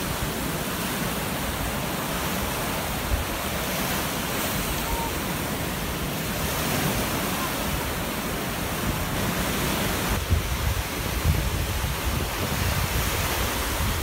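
Rough sea surf: waves breaking and washing up a sandy beach in a continuous rushing wash.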